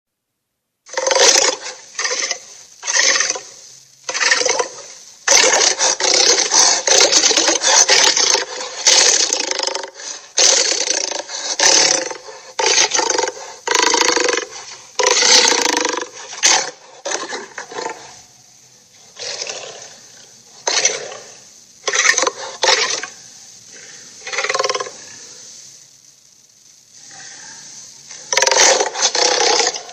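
Cartoon sea monster sound effects: a long run of roars and growls, some short and separate, some running together into longer stretches, with a lull of a couple of seconds near the end.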